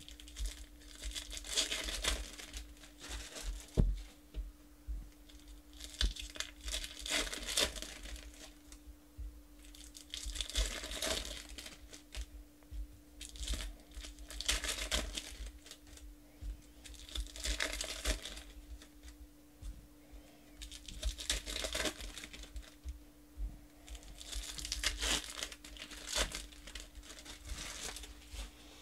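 Shiny foil trading-card pack wrappers being torn open and crinkled by hand, in bursts every few seconds, with cards handled in between. A faint steady hum lies underneath.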